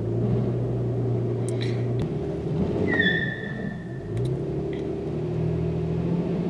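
2004 Toyota 4Runner engine running, which has a cylinder 6 misfire. It runs steadily at first, and about four seconds in it comes up to a higher speed and holds there, as when brake torqued under load. A short beep sounds about three seconds in.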